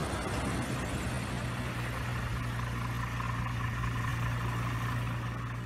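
Light bush plane's piston engine and propeller running at idle as it rolls out and taxis after landing, a steady low drone that eases off slightly near the end.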